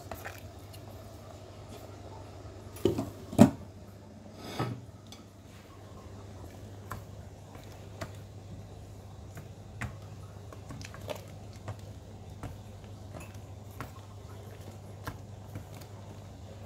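Wooden chopsticks stirring noodles in a stainless steel pot and knocking against its sides: a few sharp knocks about three seconds in, then lighter taps roughly once a second, over a steady low hum.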